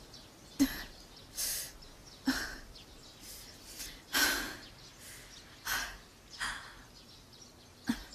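A woman breathing hard: short, breathy gasps and sighs, about one every second.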